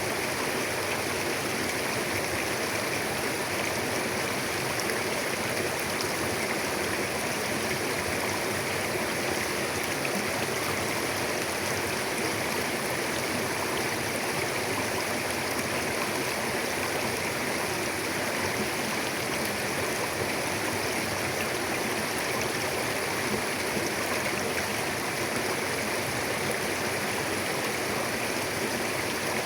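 Mountain river flowing over rocks: a steady, unbroken rush of water.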